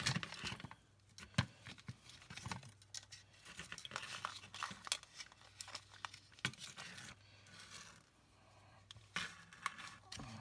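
Irregular small clicks, taps and rustling of hands handling a replacement phone battery, its wires and the plastic earcup of opened wireless headphones, over a faint steady low hum.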